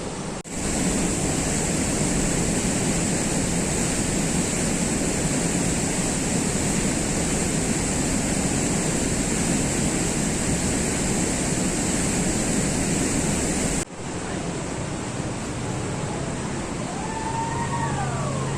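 Waterfall rushing steadily. The sound breaks off sharply twice, about half a second in and again about two-thirds of the way through, and is a little quieter after the second break. A few short chirps rise and fall in pitch near the end.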